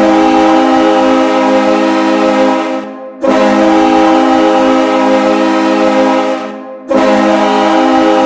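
PWHL New York's 2024 hockey goal horn sounding in long, steady blasts of several tones at once, each about three seconds long, with short breaks. One blast ends about three seconds in, the next runs to about six and a half seconds, and a third starts just before the end.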